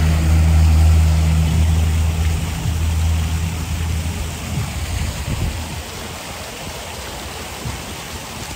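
A vehicle engine running with a steady low hum that fades away over the first few seconds, leaving the even rush of running water from an artificial rock stream.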